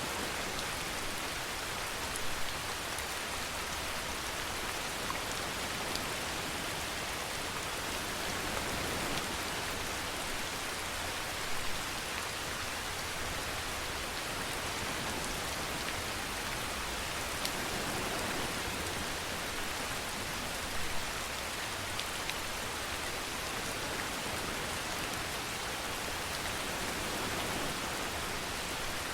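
Steady rainfall, an even hiss of drops on a surface, with a few sharper drop hits standing out now and then.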